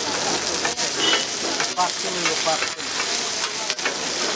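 Beef and onions sizzling in oil on a large flat iron griddle, stirred with a metal spatula.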